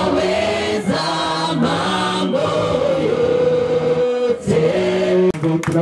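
A group of voices singing unaccompanied, with long held notes, a woman singing into a microphone among them; there is a short break about four seconds in.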